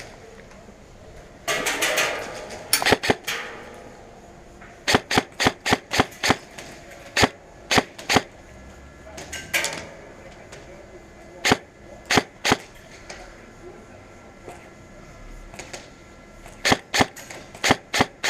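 Airsoft gun fired in single shots: about twenty sharp cracks in short quick groups, with pauses between the groups.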